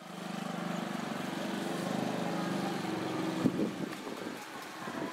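A small motor vehicle's engine runs steadily at a held pitch, then fades out about three and a half seconds in, marked by a single sharp knock. Voices follow near the end.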